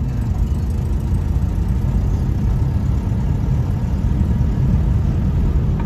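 1960s Austin Cambridge heard from inside the cabin while driving along: a steady low engine and road rumble.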